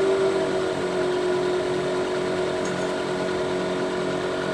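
Wood lathe running with a steady hum while a bowl gouge shaves the spinning stave drum shell.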